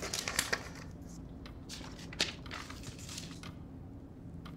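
Paper pages of a spiral-bound notepad being flipped and rustled: a quick run of soft flicks and rustles, dying away after about three seconds.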